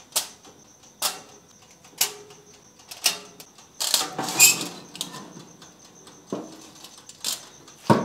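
Toaster oven being loaded: a foil-lined tray slid onto the metal rack with a series of light clicks and scrapes and a longer scraping rustle about four seconds in, then a click near the end as the glass door is shut.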